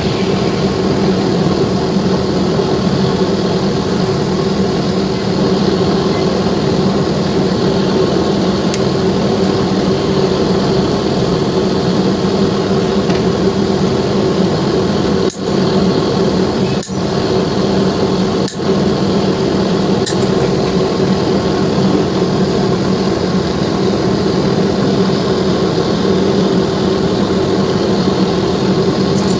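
A loud, steady machine hum with a low pitched drone. It cuts out briefly three times about halfway through, and a few faint clicks sound over it.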